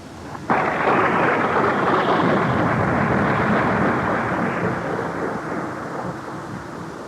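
Recorded thunder sound effect: a sudden loud crack about half a second in that rumbles and slowly fades over several seconds.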